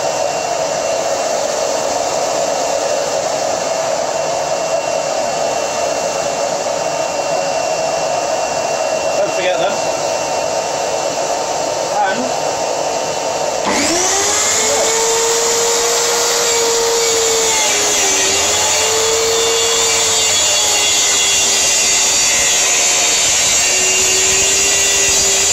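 A shop vacuum runs steadily. About halfway through, a Titan plunge (track) saw starts, its motor spinning up with a rising whine, then cuts full depth through plywood along its track, the motor's pitch dipping a couple of times under the load of the cut.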